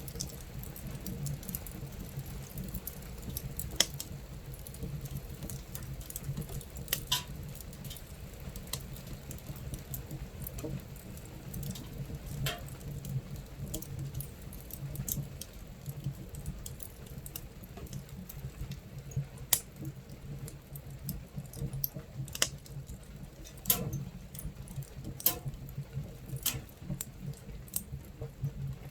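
Fire crackling inside a camping stove: sharp pops every second or two, a few louder ones, over a steady low rumble, with rain pattering on the tent.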